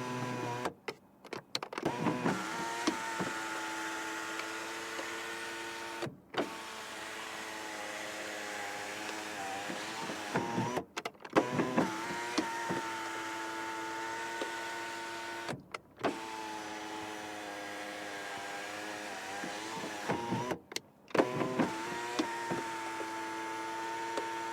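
Car sunroof's electric motor running with a steady whine as the roof panel opens and closes. It goes in several runs of about four seconds, each broken off by a short pause, with clicks as the motor stops and starts again.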